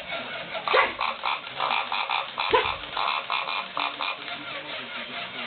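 Toy pig grunting: a rapid series of croaking pulses from about one second in until about four seconds, with a short rising squeak near the start and another in the middle.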